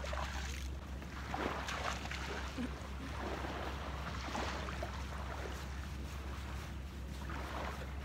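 Wind rumbling on the microphone over the wash of seawater and waves at the shore.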